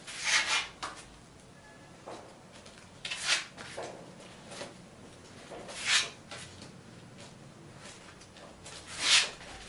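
A sheet of white paper being folded back and forth into pleats by hand and each fold rubbed flat: four brief rubbing swishes, about three seconds apart.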